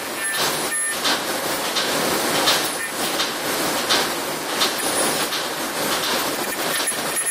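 Plastic zipper-bag making machine running: a steady mechanical clatter from its rollers and drive, with a louder stroke recurring roughly every second.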